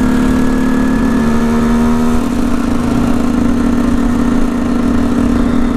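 KTM EXC 125's two-stroke single-cylinder engine running at steady revs under way, heard from the rider's own bike; its note steps up a little about two seconds in.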